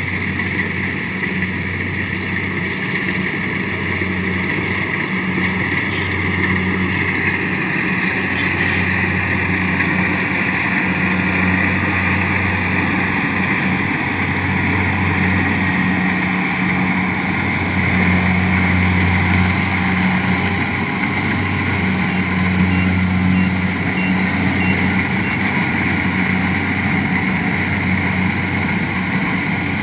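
Engine of a rice harvesting machine running steadily, a constant low hum that swells slightly under a broad mechanical rush.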